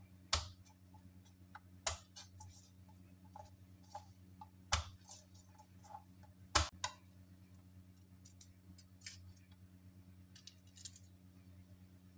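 Kitchen knife knocking down on garlic cloves on a plastic cutting board to crack them, four sharp knocks among lighter clicks, followed by short papery rustles as the skins are peeled off.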